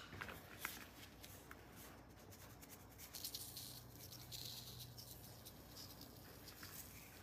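Near silence, with a few faint light taps and soft rubbing as a white cylindrical block is pressed and rubbed over a wet paper banknote.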